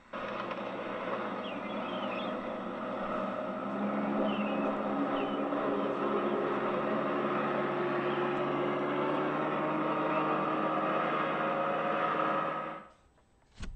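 Outboard motor of a small oyster boat running steadily across the water, played back from videotape through a television's speaker. It starts suddenly and cuts off abruptly near the end.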